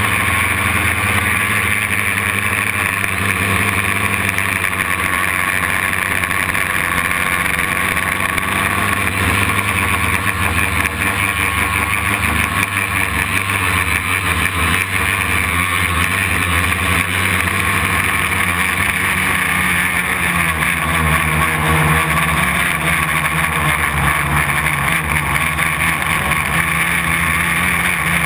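Homemade quadcopter's brushless motors and propellers running in flight, heard close up from the craft itself: a steady, loud buzzing whine whose pitch shifts a little as the throttle changes.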